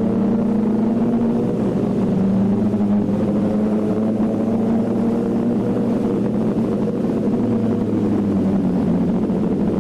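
Motorcycle engine running at a steady cruise, its pitch drifting slightly lower and back up, without hard revving.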